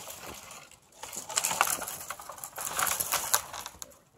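Crunching and rustling of snow-laden brush and branches being handled and pushed through, in several rough bursts over the middle couple of seconds.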